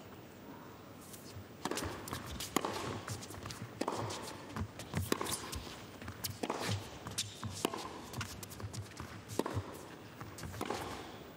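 Tennis rally on an indoor hard court: after a short lull, a serve and then racket strikes on the ball back and forth, roughly one every half second to a second, starting about one and a half seconds in. The players' shoes scuff and patter on the court between shots.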